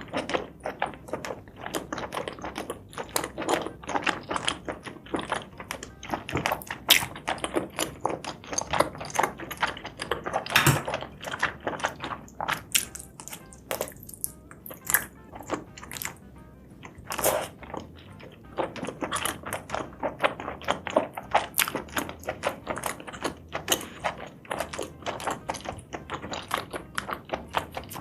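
Close-miked eating sounds: chewing spicy seafood and mushrooms, a dense run of wet mouth clicks and crunches at an uneven pace.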